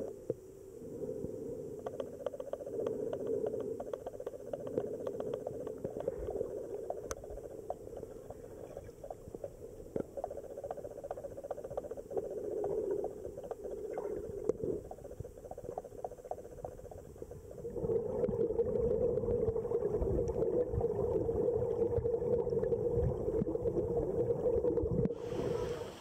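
Muffled underwater sound of a flowing stream picked up by a submerged camera: a steady low rush with scattered small clicks, growing louder about eighteen seconds in.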